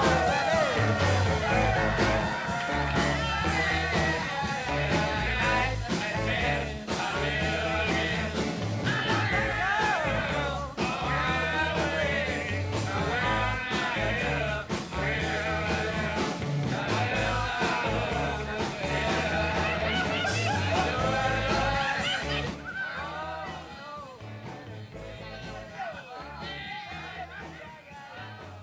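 A rock and roll song with a singing voice over a steady bass beat. It fades down over the last several seconds.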